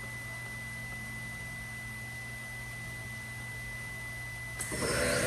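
An Omniturn GT-75 CNC gang lathe at rest, with a steady high electronic tone over a low hum. Near the end its spindle starts up with a sudden, louder steady whine made of several tones, as it comes up toward 1000 RPM.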